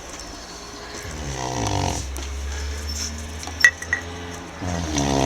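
Tibetan Mastiff snoring: two drawn-out snores about three and a half seconds apart, with two short clicks between them.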